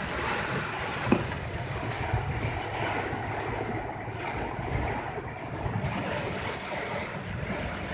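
Typhoon storm noise: steady rushing water with wind buffeting the microphone, and a single short knock about a second in.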